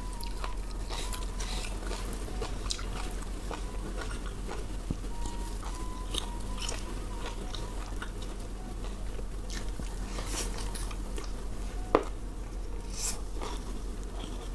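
Close-miked chewing and mouth sounds of someone eating a mouthful of rice and food by hand, with many small clicks and one sharper click about twelve seconds in.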